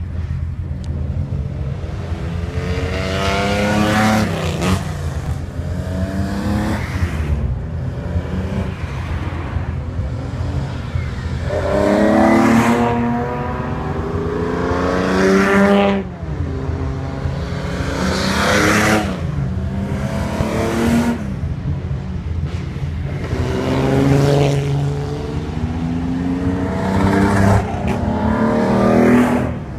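Nissan Skyline 'Hakosuka' straight-six on Solex carburettors, accelerating hard in repeated pulls: the engine note climbs through each pull and drops away at each shift or lift, over a steady low rumble.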